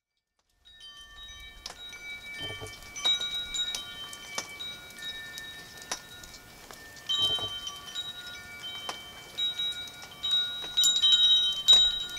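Wind chimes ringing, struck at irregular moments so that many high, lingering tones overlap, starting just under a second in.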